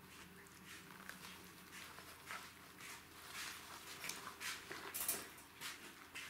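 Jack Russell Terrier puppies scuffling over a toy: soft, irregular scratching and shuffling of paws and bodies on a padded mat, busiest and loudest about five seconds in.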